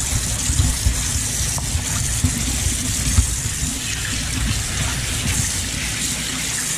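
Kitchen tap running steadily into a sink, the stream splashing over salted cod that are being rubbed by hand to wash the salt off.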